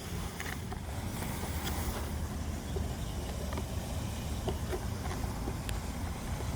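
Wind rumbling on the microphone, with a few faint small clicks.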